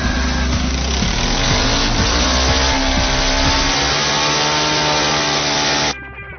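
Small engine of a supermileage fuel-economy car running loudly and revving up, its pitch rising steadily over a few seconds. It drops away abruptly near the end.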